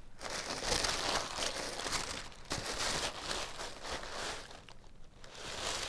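Tissue paper rustling and crinkling as it is unfolded and pulled away from a pair of sneakers in their box, easing off briefly about two-thirds through before picking up again.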